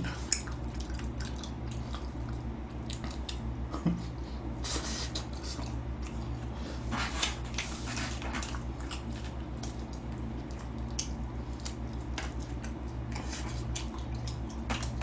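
Close-up mouth sounds of a person chewing and biting into sticky sauced yangnyeom fried chicken, with small chopstick clicks against the box, over a steady low hum.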